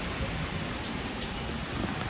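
Heavy rain falling steadily on a city street: an even hiss with a low rumble underneath.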